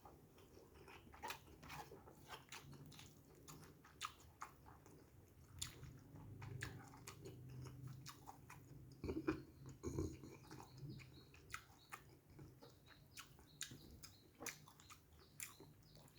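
Close-up chewing and biting of a kampung chicken thigh and noodles, with irregular small wet clicks and smacks of the mouth.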